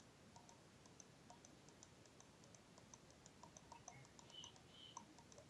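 Faint computer mouse clicks in a quick, irregular series of several a second, placing the points of a line drawn on a chart.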